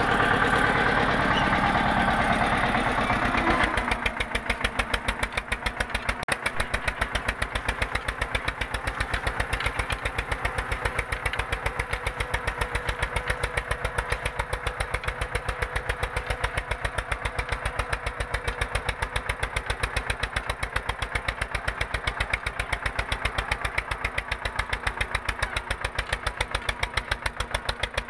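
Eicher 242 tractor's diesel engine running under load while pulling a disc harrow, with an even pulsing beat. It is louder and fuller for the first few seconds, heard up close from on the tractor, then steadier and a little quieter.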